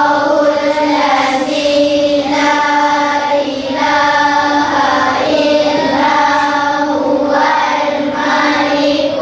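A class of young children chanting together in unison, a sing-song recitation of held notes in phrases of a second or two with short breaks between.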